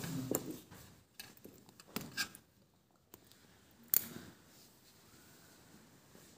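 Surgical needle holder and forceps handled while tying a suture knot: a few sharp, light metal clicks, the loudest about four seconds in.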